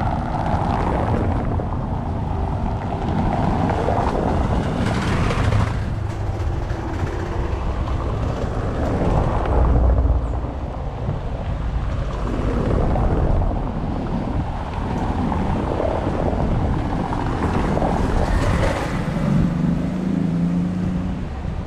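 Street traffic: cars driving past on a cobblestone street, with wind buffeting the microphone. Passing cars swell up about five seconds in and again near the end.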